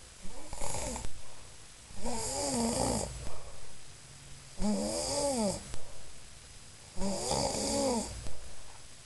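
A person snoring: four snores about two and a half seconds apart, each with a pitched tone that rises and falls.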